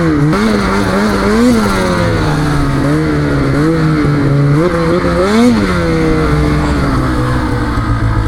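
Snowmobile engine running at a steady pitch with a few short throttle blips, the pitch rising and falling back each time; the biggest comes about five and a half seconds in.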